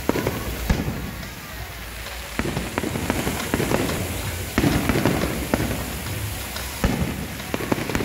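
Aerial fireworks display: shells bursting with sharp bangs at uneven intervals, about half a dozen of them, over a continuous crackling hiss.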